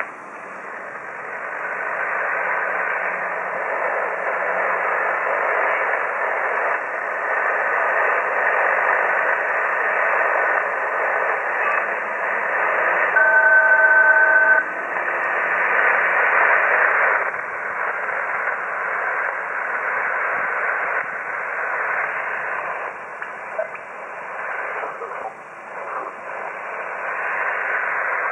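HF ham radio receiver audio full of a wide band of hiss: white-noise interference (QRM) of unknown origin that recurs about every 70 kHz across the band. The hiss swells and fades in level, and a brief cluster of steady tones sounds about halfway through.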